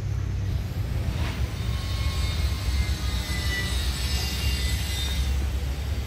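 A steady low rumble throughout, with faint high chirping and chattering from caged budgerigars from about two to five seconds in.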